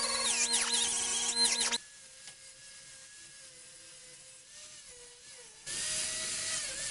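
Grinder grinding down welds on a steel sheet-metal patch panel, its whine rising and falling with the load. It drops abruptly to a much quieter, steady running tone about 2 s in, then the loud grinding returns near the end.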